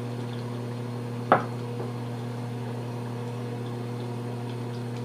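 A single sharp knock about a second in, over a steady low electrical hum.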